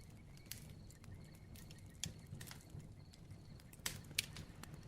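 Faint crackling bonfire: irregular sharp pops and snaps over a low, steady rumble of burning. The loudest pair of pops comes about four seconds in.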